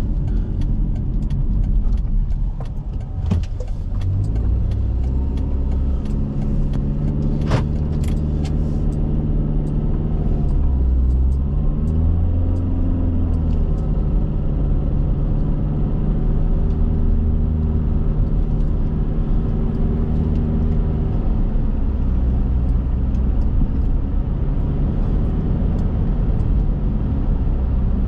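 A car driving: engine and road rumble, with the engine note climbing and then dropping back about halfway through as the car speeds up and eases off. Light rattling clicks come in the first several seconds.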